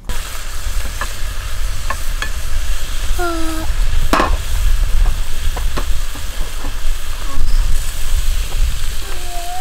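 Vegetables sizzling as they are stir-fried in a nonstick frying pan on a camp stove, with a few sharp clicks of the utensil against the pan.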